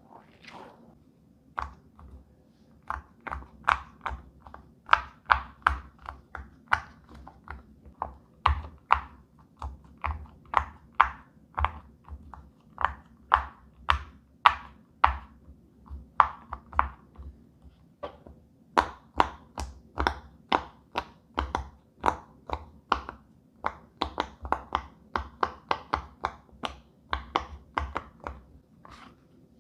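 Silicone pop-it fidget toy bubbles being pressed one after another, a long uneven run of quick pops, about two to three a second, each with a soft thud underneath.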